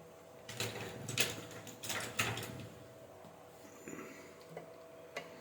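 Bench handling noises: a quick run of clicks and rustling in the first couple of seconds and a few lighter ticks later, over a faint steady electrical tone.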